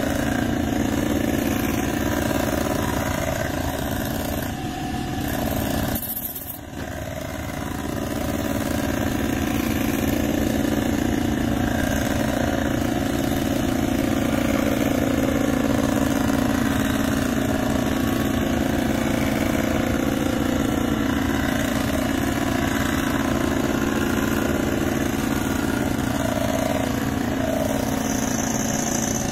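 Cylinder head resurfacing machine running steadily as its cutter mills the head's gasket face, a continuous machining hum and hiss that dips briefly about six seconds in.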